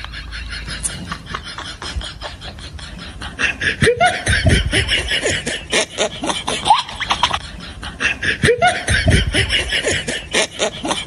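People laughing in repeated bursts of quick pulses, louder from about four seconds in.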